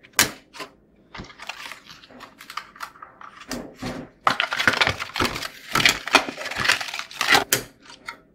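Plastic clicks and scraping as DDR4 RAM sticks are pushed into a desktop motherboard's memory slots and the slot's retention clips snap shut: two sharp clicks right at the start, then a dense run of clicks and rattling in the second half.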